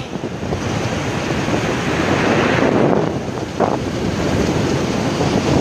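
Strong wind buffeting the microphone, a loud rushing noise that swells for a moment about halfway through.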